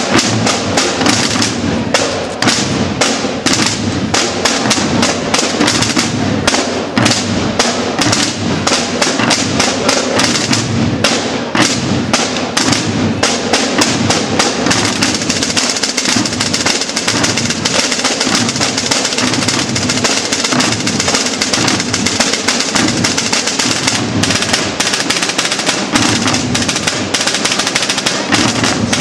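Massed Holy Week processional drum corps of snare and bass drums beating a fast rhythm of sharp strokes, which merges into a sustained drum roll about halfway through.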